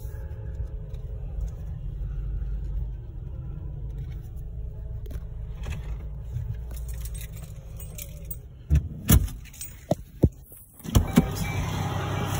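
Low rumble of a car, heard from inside the cabin. About eight and a half seconds in, the rumble gives way to a run of sharp clicks and clunks with keys jangling and a short lull, the sounds of a car being parked and switched off.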